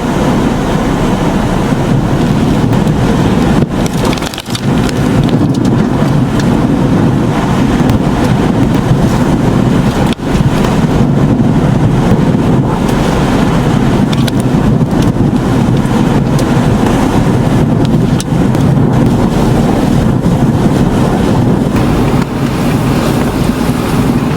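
Hurricane wind buffeting the microphone: loud, steady rushing noise, heaviest low down, with brief dips about four and ten seconds in.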